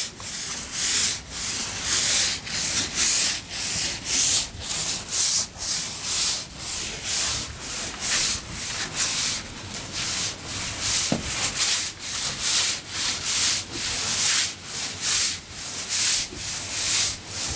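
Hard bristle brush scrubbing wet wooden deck boards with deck cleaner, in steady back-and-forth strokes of about two to three a second.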